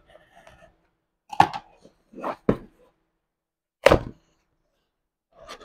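A cardboard box and paper card handled on a table: several sharp knocks and taps, the loudest about a second and a half in and again about four seconds in, with faint rustling of card between them.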